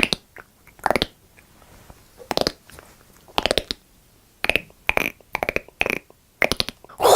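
A string of about eight short, abrupt sound-effect blips, each a fraction of a second long, with short quiet gaps between them.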